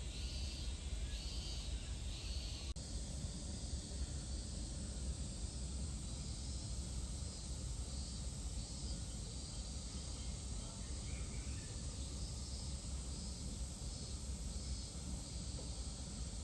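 Outdoor ambience: a steady low rumble with a high insect call repeating in short pulses, clearest in the first three seconds and fainter later on.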